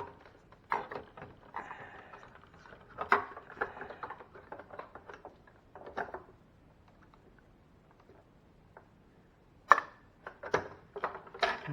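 Irregular plastic clicks, knocks and rustling from a refrigerator ice maker assembly being handled and pushed at its housing. There is a quiet spell in the middle, then a sharp click near the end.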